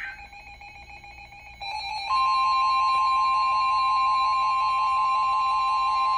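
Weather radio receiving a NOAA Weather Radio alert. Faint buzzy data bursts come first, then a warbling alarm sound starts about a second and a half in. Half a second later the loud, steady warning alarm tone joins it and holds.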